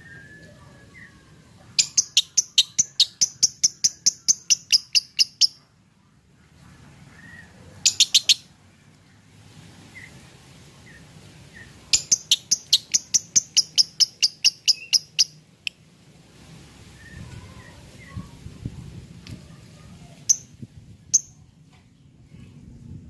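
Lovebird singing in the 'semi-konslet' style: long, fast runs of sharp, high-pitched chirps, about six a second, each run lasting several seconds, with shorter bursts and single chirps between them.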